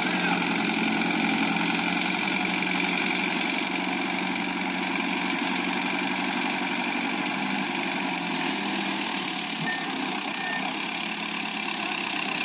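Ace tractor's diesel engine running steadily at a low, even speed.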